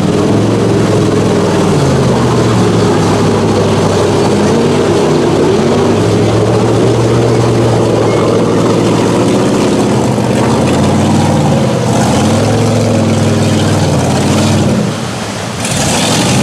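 Hummer H2's engine revving hard and repeatedly, its pitch rising and falling as the tires churn through deep mud. The engine drops off briefly near the end, then comes back with a short burst of hiss.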